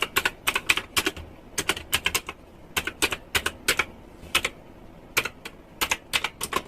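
Keys of a typewriter-style mechanical keyboard with round plastic keycaps being pressed one after another as a key test: sharp clicky keystrokes in quick uneven clusters with short pauses between them.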